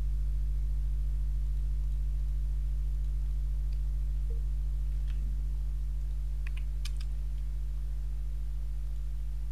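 Steady low electrical mains hum, with a few faint computer keyboard and mouse clicks about halfway through.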